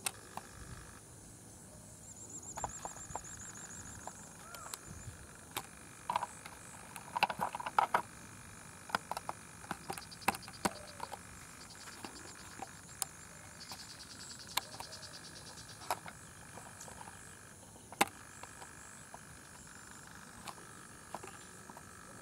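Evening wildlife chorus: a steady high-pitched insect drone with repeated trills, including pulsed trills about ten and fourteen seconds in. Scattered sharp clicks and knocks break through, the loudest cluster about seven to eight seconds in.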